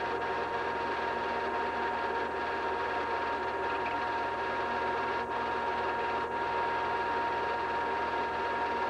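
16mm film projector running steadily, a continuous mechanical whirr with a thin steady high tone through it.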